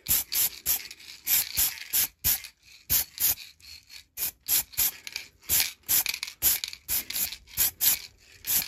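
Aerosol spray-paint can hissing in many short bursts, about two or three a second: a light coat of green paint being sprayed onto small primed miniatures.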